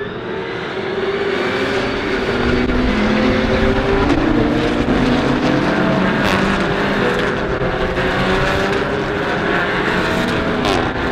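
A pack of GT and touring race cars driving past together, many race engines running at once and overlapping. The sound swells about a second in and stays loud as the field streams by.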